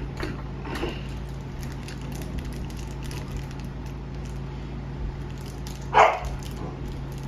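Pet dog barking: one short, loud bark about six seconds in, with a steady low hum underneath.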